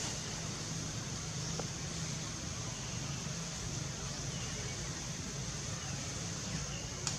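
Steady outdoor background noise: an even hiss with a low hum underneath, and a single sharp click near the end.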